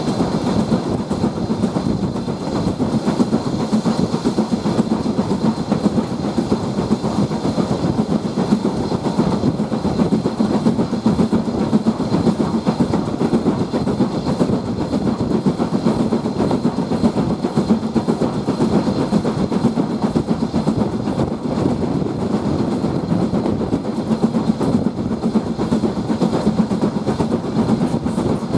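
Steam train hauled by a BR Standard Class 4 2-6-4T tank locomotive running steadily along the line, a continuous rumble of wheels on rails heard from the carriage just behind the engine.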